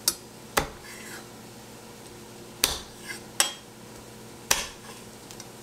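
Chef's knife chopping garlic cloves on a wooden end-grain butcher block: about six sharp knocks of the blade on the board at irregular intervals.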